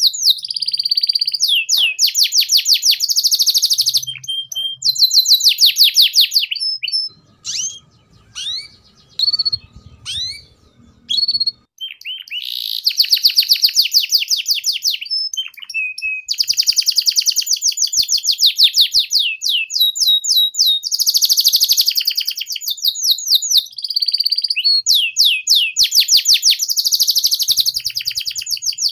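Domestic canary singing long runs of fast, rolling trills of repeated high notes (the chattering 'ngeriwik' style). About seven seconds in the song breaks for some five seconds into scattered single chirps, then the fast trills resume and run on.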